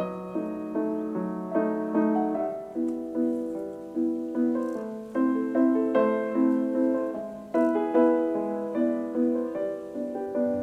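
Background music: a gentle solo piano piece, notes struck at an even, unhurried pace and left to ring out.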